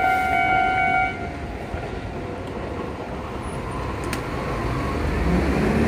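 Japanese level-crossing warning bell ringing, then stopping about a second in as the crossing clears after the train. After that only the even rumble of street traffic remains.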